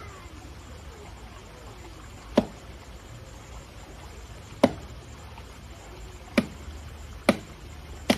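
An orangutan cracking food in its teeth: five sharp cracks, the first about two seconds in, coming closer together toward the end, over faint steady background noise.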